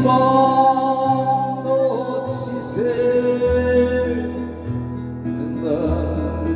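Electric guitar playing a slow lead melody of long held notes that slide between pitches, over a trot backing track with a stepping bass line.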